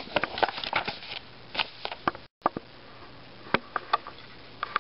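A folded paper leaflet being handled and unfolded: a quick run of crackles and rustles in the first second, then separate sharp clicks of paper, with the sound dropping out for a moment a little after two seconds in.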